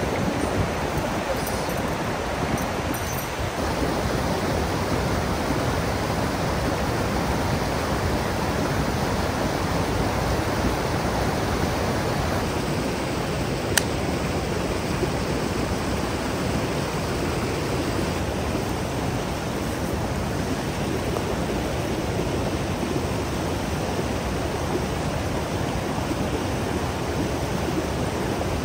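Steady, even rushing noise with no pitch, the sound of open-air surroundings, with one sharp click about halfway through.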